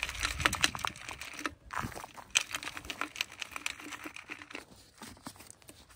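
Dirt and small stones rattling and scratching in a trapper's metal dirt sifter as it is shaken, sifting soil over a set coyote trap to blend the trail. A quick, dense run of gritty clicks that thins out over the last second or so.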